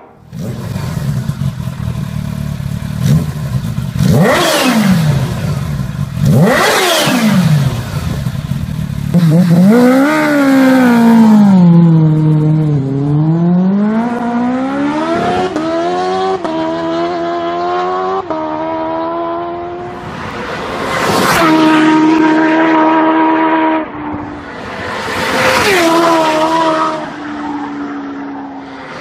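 Sportbike engines at high revs. Two bikes scream past one after another, their pitch dropping as they go by. Later a motorcycle revs up and down, climbs up through the gears and passes at speed, and another goes by near the end.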